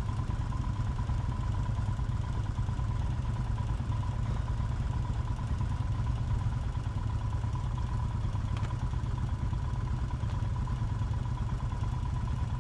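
Motorcycle engine idling steadily, with a faint steady high whine over the low rumble.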